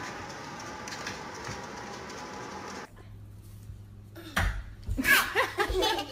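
Low background noise, then a steady low hum with a few soft thumps and a short burst of a voice, like a laugh, about five seconds in.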